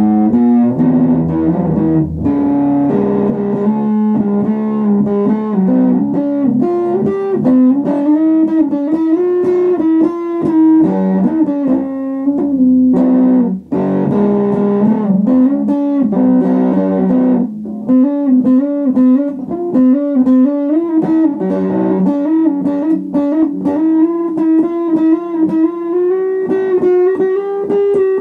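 Guitar music: a run of plucked notes changing pitch, with a short break about halfway through.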